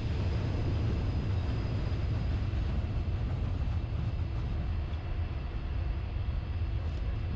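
Steady low rumble of a moving vehicle, heard from on board, running at an even level with no distinct knocks or changes.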